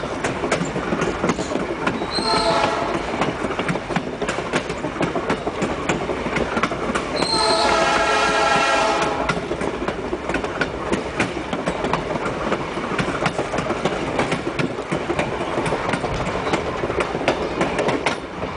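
Passenger train's wheels clicking steadily over the rail joints, heard from the rear car, with the locomotive horn sounding twice: a short blast about two seconds in and a longer one of about two seconds near the middle.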